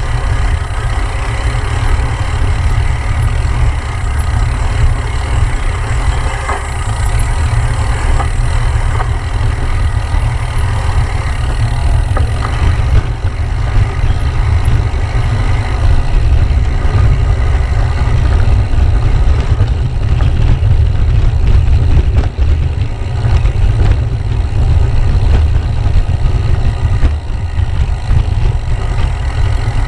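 Wind rumbling steadily on the microphone of a camera riding down a dirt single track on a gravel bike, over the hiss of the tyres on dirt and the rattle of the bike on the rough ground.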